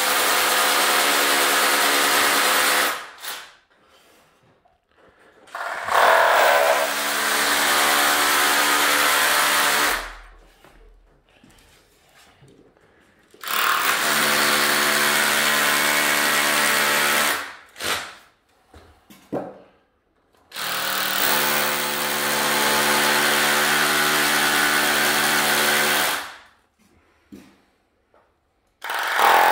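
A loud motor run in four separate bursts of about three to six seconds each, holding a steady pitch with a harsh, hissy edge, and stopping between bursts.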